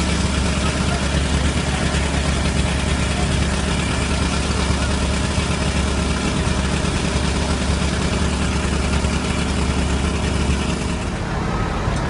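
Construction machinery engine running steadily, a constant low drone. The drone changes about a second before the end.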